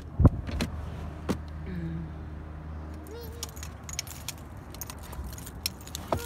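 Handling noises in a parked car as a small child climbs out of the back seat: a sharp thump about a quarter second in, a few lighter knocks, then many small clicks near the end, over a low steady hum that fades out.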